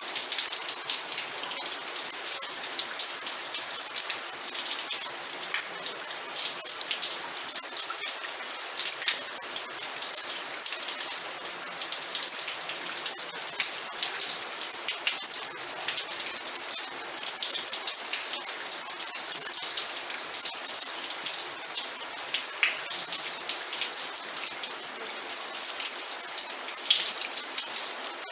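Steady rain falling on a surface, a constant hiss dense with close individual drop ticks that holds even throughout.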